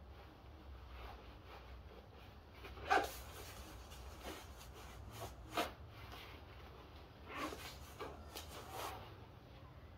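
Nylon shell of a puffer jacket rustling as it is worn and handled, in a series of short, sharp rustles about a second apart. The loudest comes about three seconds in.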